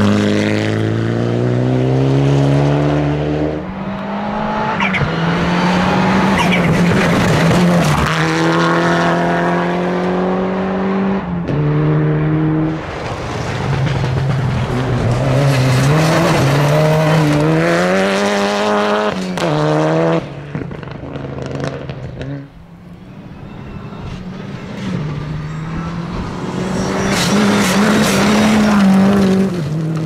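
Rally cars, Mitsubishi Lancer Evolutions among them, driven hard on a gravel stage: turbocharged four-cylinder engines revving up through the gears, the pitch climbing and then dropping sharply at each gear change. Tyres skid and spray loose gravel. Several cars pass in turn.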